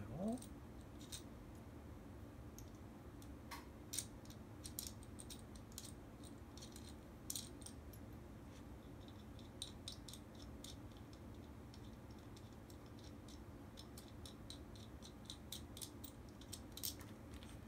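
Faint, irregular clicks and light scrapes of small parts being handled: a motorcycle dashcam body and its anti-theft bracket being fitted together on the camera's rear screw and tried for play.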